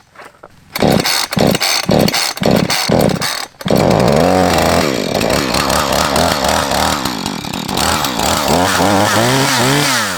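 Flooded two-stroke chainsaw being pull-started with the throttle trigger held open and the choke off: a string of quick cord pulls cranks the engine over, then it catches about three and a half seconds in and runs, revving up and down. Holding the trigger open while cranking is meant to clear the excess fuel from the flooded engine.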